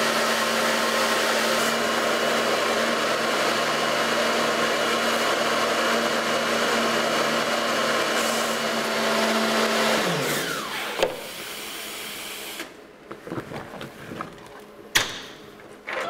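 High-pressure water jet spraying inside a closed wash cabinet, over a steady pump hum, as it blasts support material out of a 3D-printed part. About ten seconds in, the hum falls in pitch and the spray stops, and a few knocks follow with a sharp click near the end as the cabinet's lid is handled.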